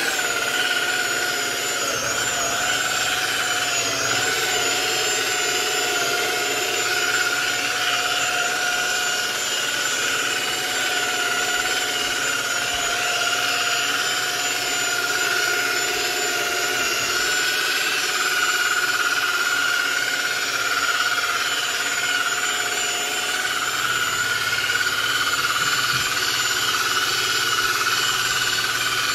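Handheld electric polisher with a round carpet-scrubbing pad running steadily while scrubbing stair carpet: a continuous motor whine with a high note, its pitch wavering slightly at times.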